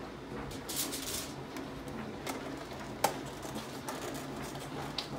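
Kitchen handling noises as raw salmon fillets are taken from a plastic clamshell container and laid on a foil-lined baking pan: a brief crinkle near the start, a sharp click about three seconds in, and a few soft ticks.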